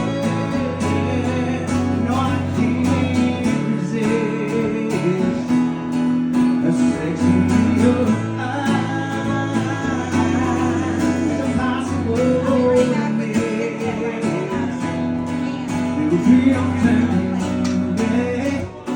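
Guitar playing an instrumental break in a live country song, strummed chords under a wandering melodic line, between sung lines.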